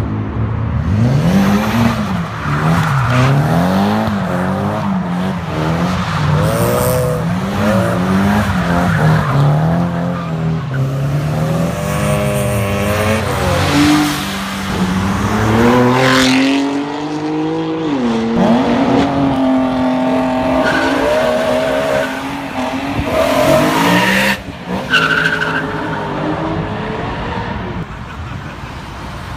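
Car engines revving and accelerating past one after another. For the first ten seconds or so the engine note swings up and down repeatedly, then it climbs in long rises as cars pull away, with some tyre noise at times.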